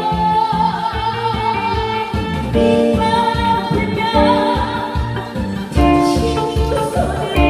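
Singing over accompanying music with a steady, even beat; the voice holds long, wavering notes.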